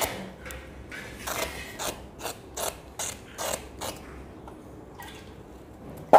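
Hand vegetable peeler scraping the skin off a bottle gourd in quick repeated strokes, about three a second, thinning out after about four seconds. A sharp knock comes near the end.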